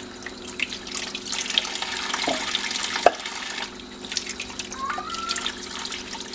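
Kitchen tap running into a sink while citrus fruit is rubbed clean under the stream by hand, with a couple of sharp knocks of fruit against the sink a little past halfway.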